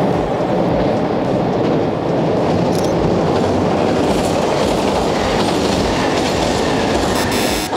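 Kintetsu electric train passing over the Yamato River railway bridge, a steady loud running noise of wheels on rails that cuts off abruptly at the end.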